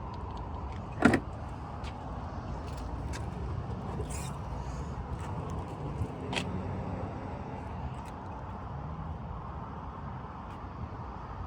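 A car with a steady low rumble, a sharp knock about a second in and a few light clicks.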